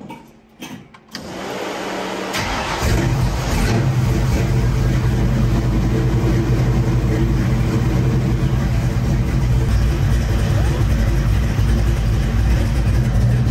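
Ford Maverick's carbureted engine cranking over and catching about two seconds in, then running at a steady idle.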